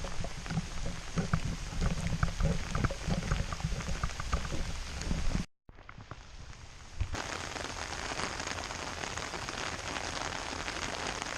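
Steady rain falling, with close drops ticking sharply. It cuts out for about a second around halfway, then the rain carries on as an even hiss.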